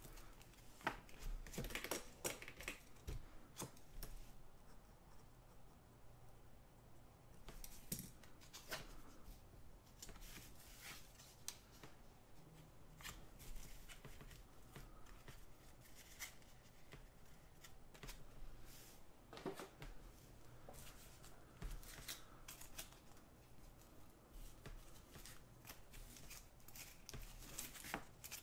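Trading cards being handled and sorted by hand: faint, scattered rustles, slides and taps as cards are shuffled against each other and laid on the table mat, coming in small clusters a few seconds apart.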